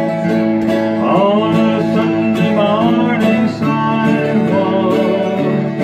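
Acoustic guitar strummed as accompaniment, with a man singing a slow country song.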